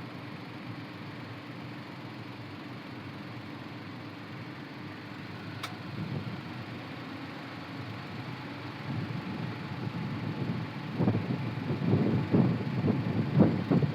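Steady low background hum, then wind buffeting the microphone in irregular gusts that begin about nine seconds in and grow stronger near the end; a single faint click about halfway through.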